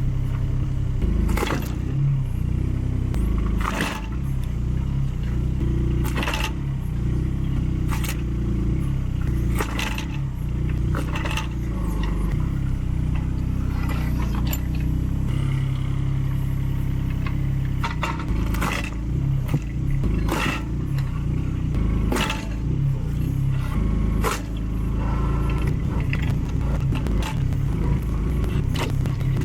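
Mini excavator engine running steadily under hydraulic work, with a sharp knock every two seconds or so as the axe mounted behind its grapple strikes and splits firewood logs; the knocks pause for a few seconds midway.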